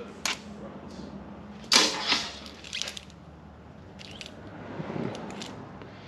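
Hands handling a remote choke cable and its small fittings: scattered clicks, taps and rustles, the loudest a sharp clatter about two seconds in.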